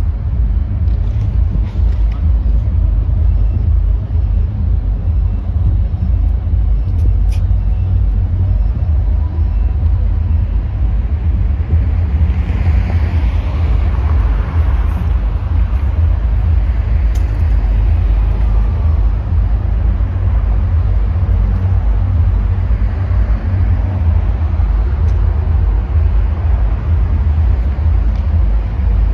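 City street traffic with a steady deep rumble under it; a car passes close by, swelling and fading, about twelve to sixteen seconds in.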